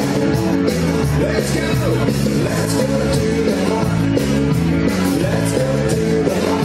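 Dance music with a singing voice and a steady beat, rock and roll in style.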